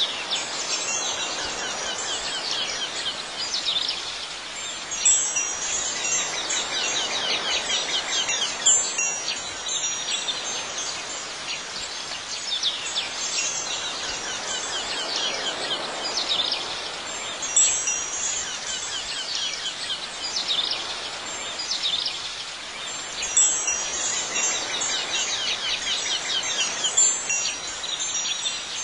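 Wind chimes ringing irregularly over a steady hiss, as a relaxing Zen-style background track.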